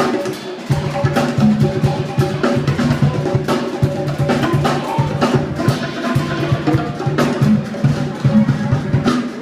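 Live band music led by a drum kit: busy drum hits and fills over a low bass line of held notes that stop and start.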